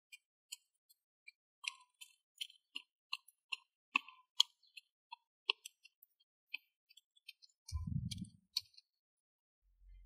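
A pestle striking and grinding in a coconut-shell bowl, crushing red chillies and salt: a run of sharp, irregular taps, about two to three a second, thinning out in the second half, with a low thump about eight seconds in.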